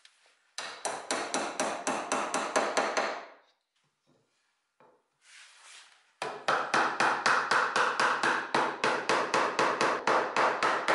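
Mallet knocking wooden joints together, a dowel and then a drawer side driven home, in two runs of quick, even blows about five a second. The first run lasts about three seconds, and the second, longer run starts about six seconds in.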